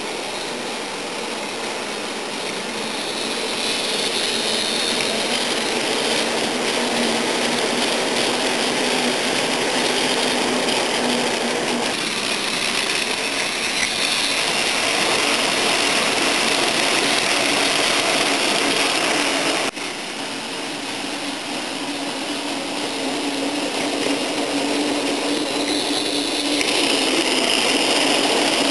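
Battery-powered Tomy Plarail toy trains running on blue plastic track: a steady mechanical whirr from their small electric motors and gears. The whirr drops briefly about two-thirds of the way through.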